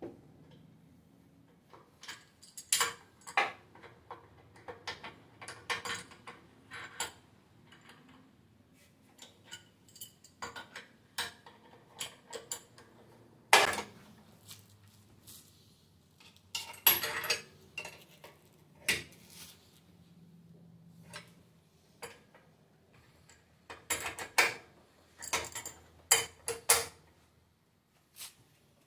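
Total 10-inch steel adjustable wrench clanking and clicking against a bolt head clamped in a steel bench vise as it is fitted and worked by hand. The sound is a scatter of sharp metal knocks in small clusters, with the loudest knock about halfway through.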